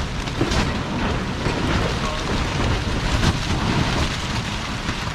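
Heavy rain and gusting wind of a thunderstorm beating on a camp tarp, with a steady low rumble.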